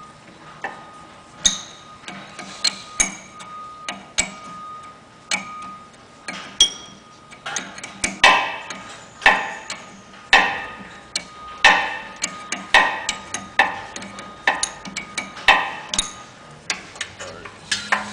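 Hand wrench clicking and clinking against the brass fittings of a truckmount's chemical pump as they are unscrewed: a steady run of sharp metal clicks, irregular and quicker from about halfway, some ringing briefly.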